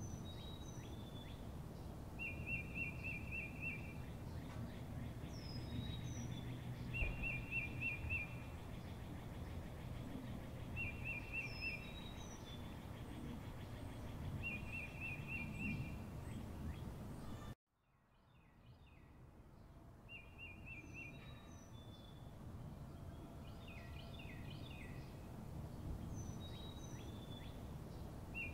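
Background ambience of birds calling over a steady outdoor rumble: a short rapid trill repeats about every four seconds among higher chirps. About two-thirds of the way through the sound cuts out abruptly, then fades back in.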